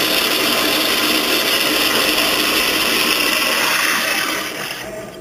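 Water rushing steadily from a TOTO sensor-operated flush valve into a toilet bowl, tapering off and stopping near the end as the valve closes.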